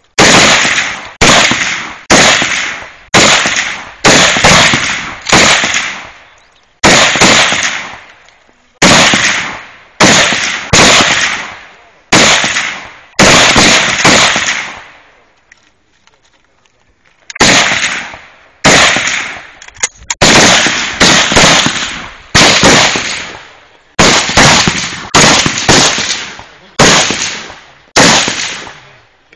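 7.62x39 rifles firing single shots, roughly one a second, each crack followed by a fading echo. The shots come from several rifles, overlapping in quicker runs near the end, with a pause of about three seconds midway.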